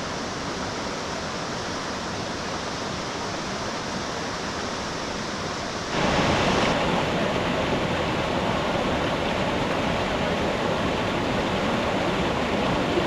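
Rushing water of a mountain river, a steady full roar of white noise that jumps noticeably louder about six seconds in.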